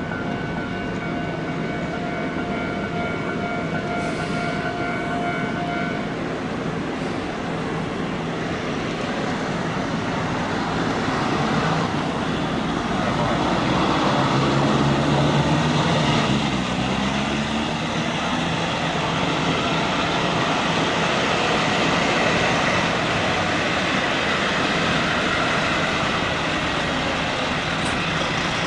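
A heavy vehicle passes close by about halfway through; its engine grows louder, then drops in pitch as it goes past, over steady traffic noise. A thin steady tone stops about six seconds in.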